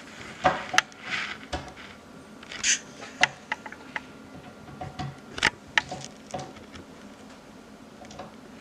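Irregular light clicks, taps and short rustles of cabinet knob hardware being handled and fitted by hand, with no drill running.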